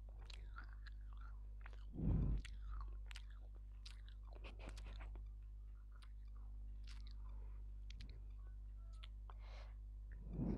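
Close-miked biting and crunchy chewing of dry edible clay: a heavy crunching bite about two seconds in, then scattered small crackles and clicks of chewing, and another heavy bite at the end. A steady low electrical hum sits underneath.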